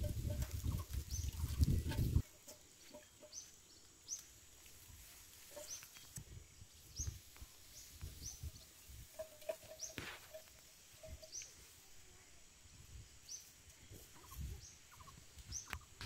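Wind rumbling on the microphone for about two seconds, cutting off suddenly. Then a faint outdoor scene: a bird repeating a short high rising chirp about once a second, with soft footsteps on dirt.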